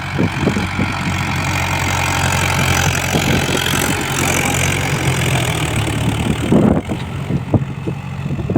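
Mahindra Yuvo 475 tractor's four-cylinder diesel engine running steadily under load while ploughing, with a louder thump about seven seconds in.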